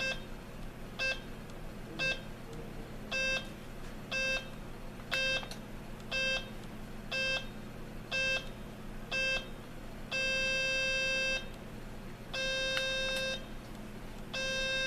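Serene Innovations VA3 travel alarm clock's audio alarm going off. It gives short electronic beeps about once a second, each a little longer than the last. About ten seconds in these give way to long beeps of a second or so, three in all.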